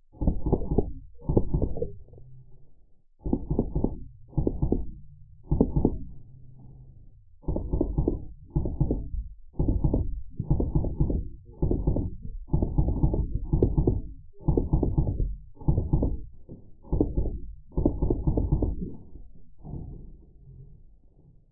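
Drozd Blackbird CO2 BB machine guns firing short full-auto bursts, one after another about once a second, in slowed-down audio that makes each burst a low-pitched rattle of thuds.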